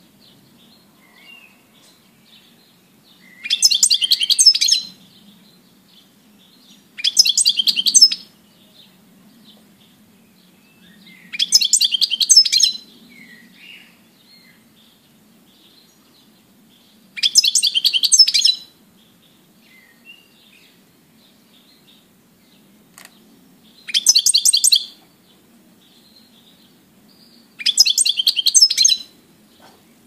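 European goldfinch singing: six short bursts of rapid, high twittering, each about a second long, with faint chirps between them.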